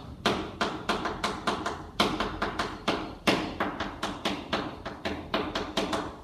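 Chalk tapping against a blackboard as characters are written stroke by stroke: a quick, uneven run of sharp taps, three or four a second.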